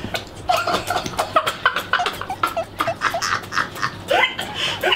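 Men giggling and snickering under their breath in quick, short bursts, trying to hold in their laughter.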